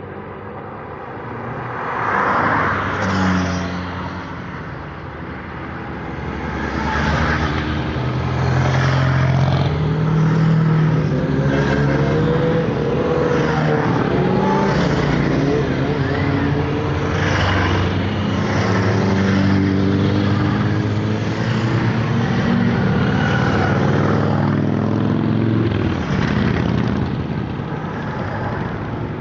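A long line of motorcycles riding past one after another, engines swelling and fading as each goes by. The sound builds up and stays loud and continuous from about seven seconds in, easing near the end.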